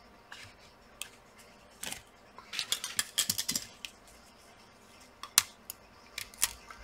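Plastic clicks and rattling as a laptop battery pack is handled and lifted out of the open plastic chassis, busiest in the middle, then a few single sharp clicks near the end.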